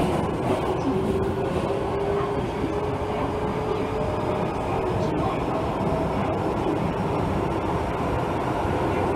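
Osaka Metro 66 series subway car running through a tunnel: a steady rumble of wheels on rail, with a motor whine that slowly rises in pitch as the train gathers speed.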